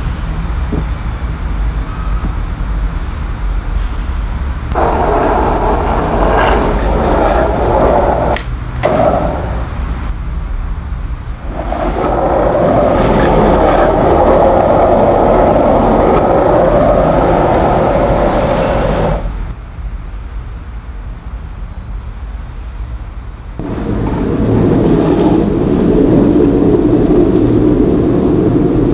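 Skateboard wheels rolling on concrete in several long stretches, loudest from about 12 to 19 seconds in, over a steady low hum.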